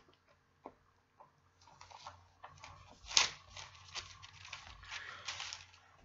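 Pages of a Bible being leafed through: a run of soft paper rustles and flicks, with a few light ticks in the first second and the sharpest flick about three seconds in.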